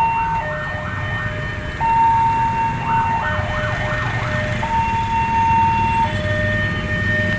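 Electronic warning bell of a railway level crossing sounding, alternating between a higher and a lower tone about every second and a half, the signal that the gates are down for an approaching train. A faster warbling tone joins in briefly near the start and again about three seconds in, over the low running of idling motorcycle and car engines.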